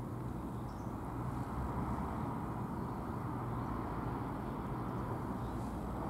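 Steady low rumble of outdoor park ambience, with no bells or voices.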